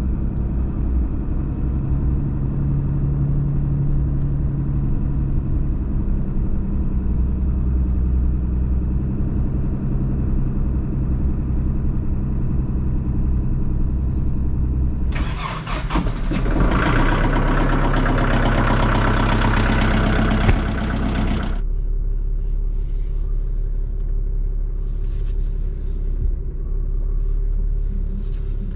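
A vehicle engine runs steadily. Partway through, a loud rushing noise covers it for about six seconds and then cuts off suddenly.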